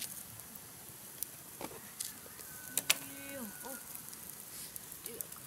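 Wood campfire crackling, with a handful of sharp pops scattered through, the loudest about three seconds in. A fowl calls once in the background in the middle.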